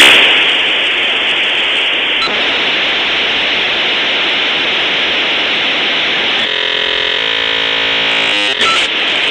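Dial-up modem handshake noise: a loud, steady rush of static hiss that starts abruptly. About two-thirds of the way through, a buzzing cluster of steady tones cuts in over it for a couple of seconds, then the hiss carries on.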